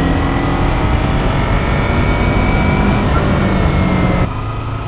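Kawasaki Ninja 250R's parallel-twin engine running while the bike is ridden down the road, under a steady rush of wind noise. The engine pitch lifts a little mid-way, and the sound drops suddenly near the end.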